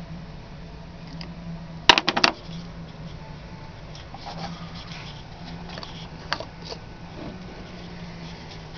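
Pickle*Pusher fermenting weight clicking against a glass mason jar as it is pressed down into the neck: a quick cluster of sharp clicks about two seconds in, then a few lighter taps. A steady low hum runs underneath.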